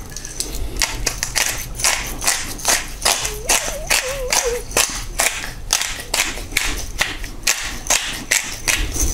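Hand-twisted pepper mill grinding black peppercorns, a crunching grind about three strokes a second with each twist.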